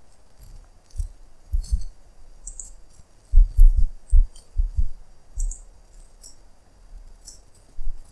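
Computer mouse clicks and a keyboard shortcut press, heard as scattered short ticks, along with a series of dull low thumps, the loudest clustered a little past the middle.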